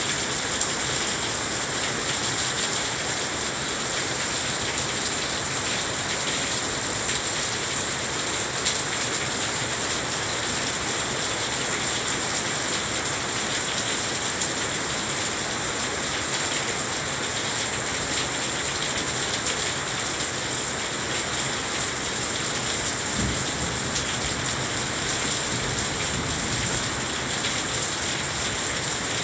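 Heavy rain falling steadily on a balcony's glass railing and deck: a dense, even hiss with scattered drop ticks. A low rumble joins in about three-quarters of the way through.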